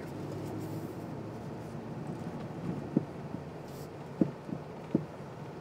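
Low, steady drone of a Nissan Patrol's 5.6 L V8 petrol engine heard from inside the cabin as it creeps along a dirt track, with a handful of sharp knocks in the second half, the loudest about three, four and five seconds in.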